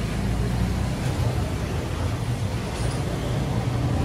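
Steady low rumble of street traffic, engines running and passing, with no single event standing out.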